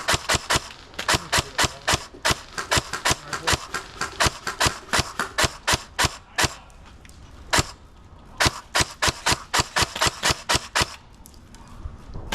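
Airsoft gun firing rapid strings of sharp shots, several a second, with a short pause about seven seconds in and another near the end.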